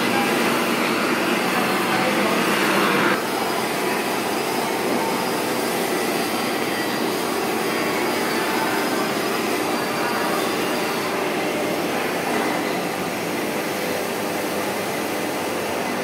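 Steady machine-shop drone from running machinery, a dense hiss with a low hum under it. About three seconds in it drops a little and turns duller, then carries on unchanged.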